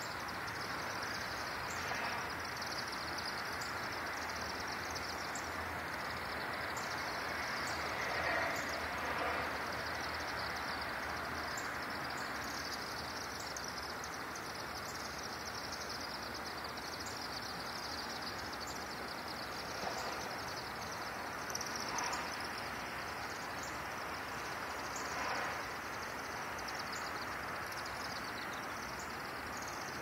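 Continuous high-pitched chittering of a large flock of chimney swifts circling over their roost chimney, over a steady background of traffic noise.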